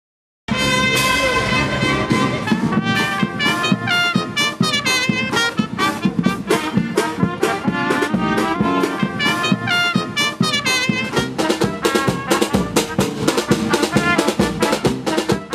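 Street brass band playing a lively tune: trumpets over a sousaphone and drums, with fast, short notes. It starts suddenly about half a second in.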